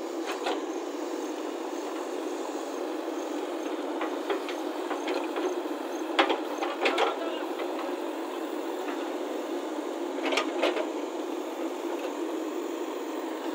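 JCB 3DX backhoe loader's diesel engine running steadily while the rear bucket digs, with a few sharp knocks and clatters about six seconds in and again about ten seconds in.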